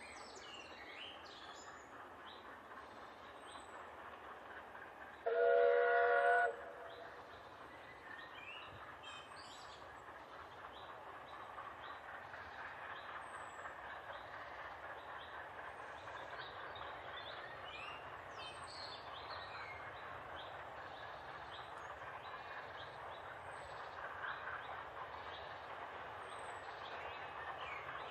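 Steam whistle of NG/G16 Garratt locomotive No. 87, one blast of just over a second with several notes sounding together, about five seconds in. Otherwise the distant train running, a steady noise that grows slowly louder, with birds chirping.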